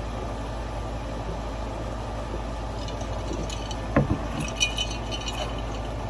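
Tableware being handled while eating: one sharp knock about four seconds in, then a short run of light, ringing clinks. A steady low hum runs underneath.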